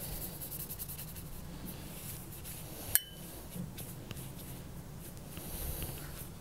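Paintbrush stroking across wet paper, a faint soft rubbing, with one sharp click about three seconds in.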